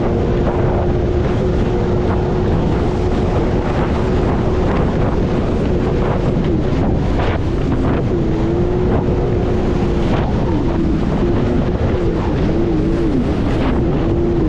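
Jet ski engine running at speed with a steady pitch that wavers up and down near the end as the throttle changes. Heavy wind rushes over the microphone.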